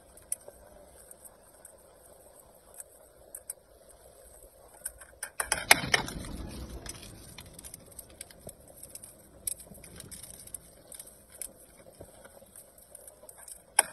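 Hard-boiled eggshells crackling and clicking as they are cracked and peeled by hand, in scattered small clicks, with a louder, noisier stretch about five and a half seconds in.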